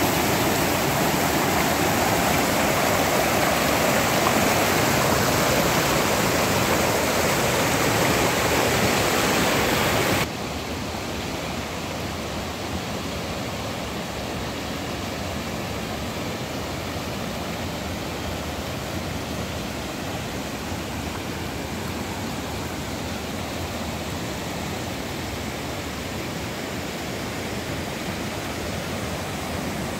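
River water rushing steadily over rocks and cascades. About a third of the way in it drops suddenly to a quieter, duller rush of running water.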